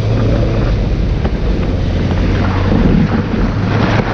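Benelli 600GT's inline-four engine running steadily on the move, under heavy wind noise on the microphone.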